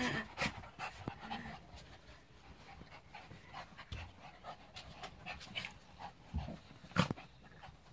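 Small dogs panting and scuffling as they roll about on a shaggy rug, with a sharp knock about seven seconds in.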